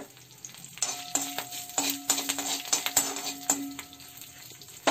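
Tempering spices (mustard seeds, cumin, chana dal, dried red chillies and curry leaves) sizzling in hot oil in a metal kadai. From about a second in to three and a half seconds a spoon stirs and scrapes the pan, with clicks and a ringing from the metal. A sharp knock comes near the end.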